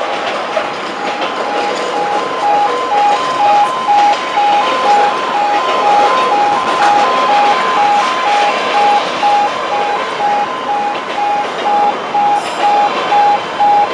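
Level crossing warning alarm sounding in even pulses, about two a second, over the steady rumble and clatter of a container freight train's wagons rolling past.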